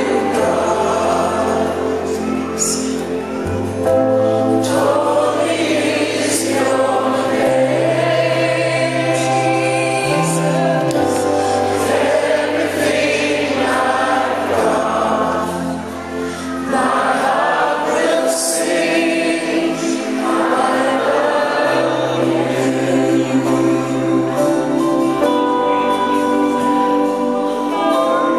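Choral worship music: many voices singing over long-held bass notes that change every few seconds.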